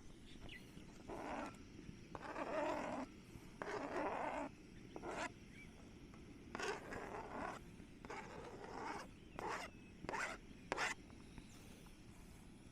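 Diced vegetables being scraped from a board into a pot, three short rustling scrapes, followed by a series of light clicks and knocks of a utensil against the cookware.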